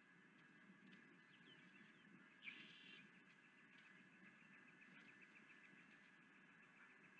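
Faint osprey calls: one sharper call about two and a half seconds in, then a run of quick, evenly spaced chirps at about five a second, over a faint steady hiss and hum.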